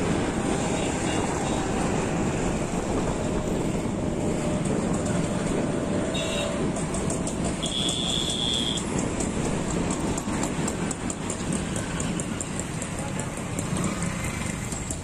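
Steady city traffic and road noise heard from a moving vehicle, with a brief high-pitched beep about eight seconds in.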